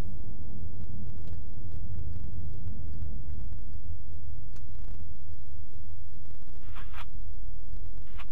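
Car driving, heard from inside the cabin: a steady low road and engine rumble with scattered faint ticks.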